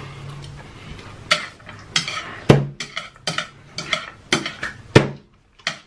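Close-miked chewing of a big mouthful of noodles: wet smacking and clicking of the mouth at an uneven pace, about two smacks a second.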